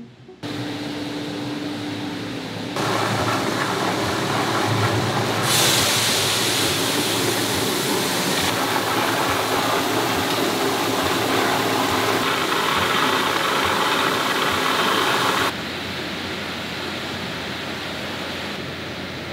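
Steady noise of tofu-factory machinery, changing abruptly several times: first a steady hum, then from about five seconds in a louder, hissing rush that drops back to a quieter steady running noise near the end.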